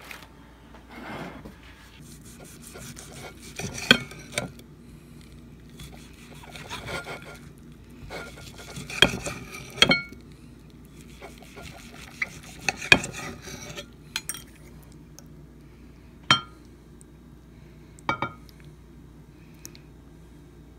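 Knife and fork clinking and scraping on a glazed ceramic plate while cooked meat is cut and served: scattered sharp clinks with softer scraping between them.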